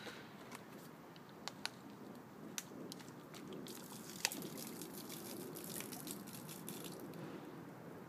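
Liquid being poured out of a small bottle, dripping and spattering. A few separate light ticks come first, then about three seconds of dense rapid pattering that thins out near the end.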